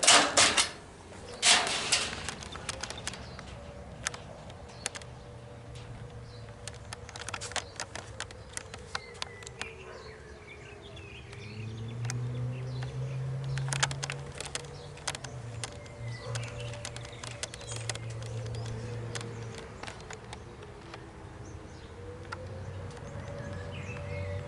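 Shell refinery air raid siren sounding its air raid tone for a routine weekly test: a single wail that slowly rises and falls in pitch, heard at a distance. A few sharp clicks stand out near the start.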